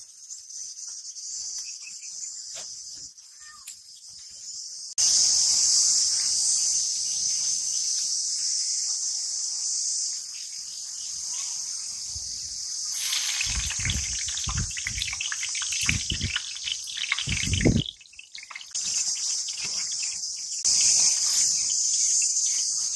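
A steady, high-pitched insect chorus that gets louder about five seconds in, over the soft sizzle of gulab jamun deep-frying in oil. A few low thumps and knocks come between about 13 and 18 seconds in, as a ladle is worked in the pan.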